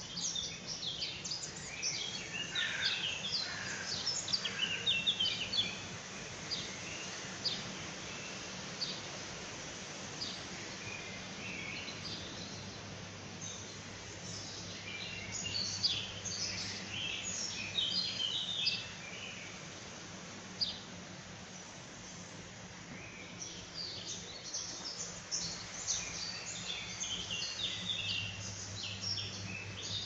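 Songbirds chirping and singing in busy bouts, near the start, in the middle and through the last third, over a steady low hum.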